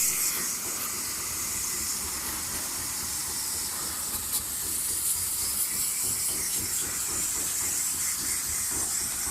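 Steady hiss of a water spray jet washing a window-type air conditioner, even throughout with small flickers.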